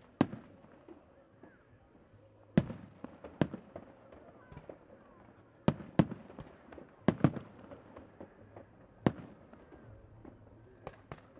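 Aerial firework shells bursting overhead: about eight loud, sharp bangs at irregular intervals, each trailing off in a short echo, with two fainter bangs near the end.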